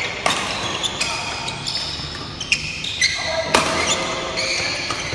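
Badminton rally: rackets strike the shuttlecock with sharp cracks, three of them about a second or two apart. Court shoes squeak short and high on the hall floor between the strokes.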